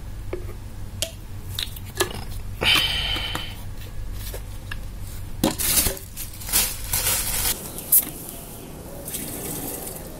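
A plastic bottle of liquid being handled on a tiled floor: a run of short knocks and clicks, with a splashy rustle about three seconds in and a busier cluster of knocks a little after the middle.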